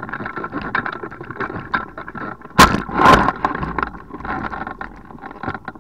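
Hang glider's control-bar wheels rolling and rattling over rough dirt and gravel, with two loud thumps about two and a half and three seconds in as the glider comes to rest and the pilot's harness drops to the ground. The rattling then dies away.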